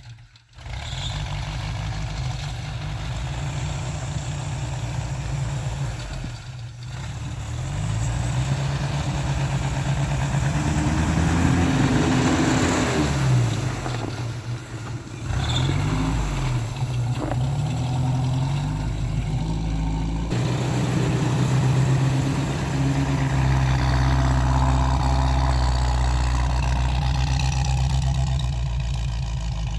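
A motor vehicle engine running, its pitch rising and falling as it revs near the middle.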